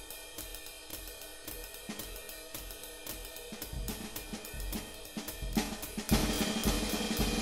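Background music with a drum kit, cymbals and hi-hat keeping a steady beat, getting fuller and louder about six seconds in.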